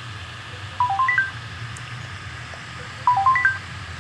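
Mobile phone ringtone playing from the phone's speaker: a short run of quick electronic beep notes stepping up and down, heard twice about two seconds apart.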